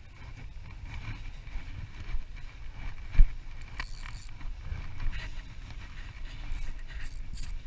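Wind rumbling on the microphone, with the faint steady whir of a spinning reel being cranked. A single sharp thump about three seconds in, followed by a few light clicks.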